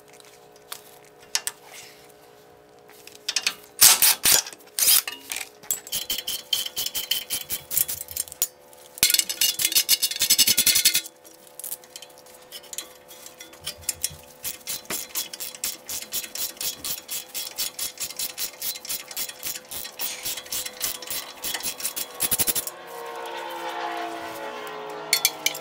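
Hand ratchet clicking in quick, even runs as the 14 mm bolts holding a lower ball joint to the spindle are unscrewed, metal on metal. In the first few seconds there are lighter metallic clinks and scrapes as pliers pull a cotter pin from the castle nut.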